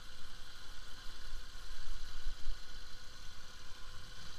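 Bajaj Pulsar RS200's single-cylinder engine running steadily at low revs as the motorcycle rolls slowly over a rough dirt track, with an uneven low rumble.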